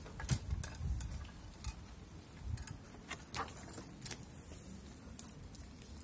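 Quiet background with a handful of faint, irregular clicks and taps.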